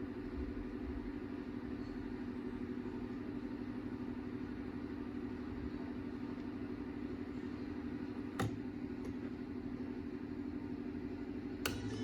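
Steady low hum, with a sharp click about eight seconds in and another just before the end.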